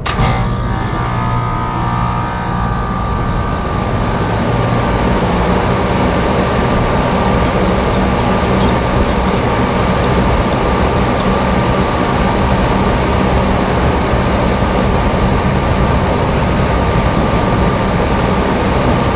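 2010 Goodman rooftop package air conditioner starting up: it kicks on suddenly, builds over the first few seconds, then runs steadily with an even rushing noise and hum.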